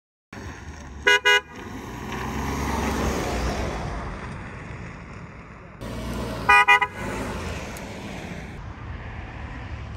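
Toyota Tundra pickup's horn tooting twice in quick succession, then the truck's engine and tyres as it drives across the lot. About six and a half seconds in comes another quick burst of toots, followed by steady driving noise with some wind.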